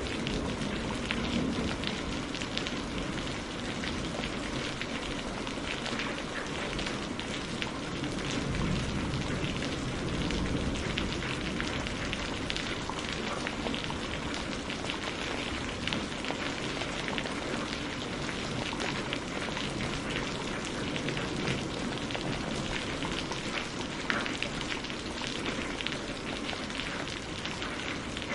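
Steady rain falling and pattering on surfaces, with countless drop ticks over an even hiss.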